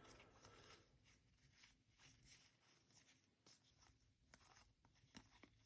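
Near silence with faint, scattered light ticks and rustles of trading cards being flipped through by hand.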